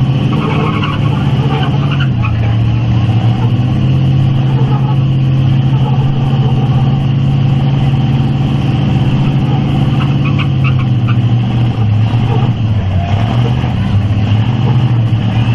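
Pickup truck engines held at high revs under heavy load as two trucks pull against each other in a tug of war: a loud, steady drone that wavers slightly, dips briefly about twelve seconds in, then climbs back.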